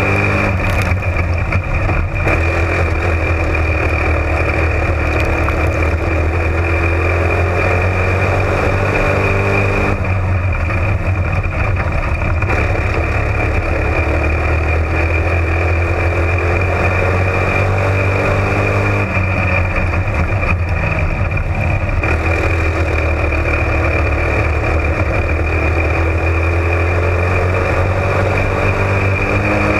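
A slingshot spec modified race car's engine running hard at racing speed, heard on board, its revs dropping and rising again in a repeating cycle as the car goes into and out of the turns of a dirt oval. A steady high whine and rushing noise run under the engine throughout.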